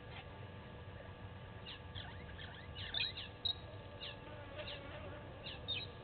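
A flock of small birds chirping: a string of short, high, downward-sliding chirps from several birds at once, busiest around the middle, over a faint low background noise.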